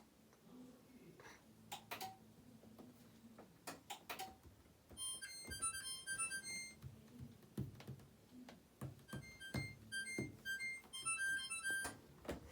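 A washer control panel plays a melody of short electronic beeps at several pitches, in two runs, with scattered clicks and knocks from handling the machine, as the GE front-load washer is reset.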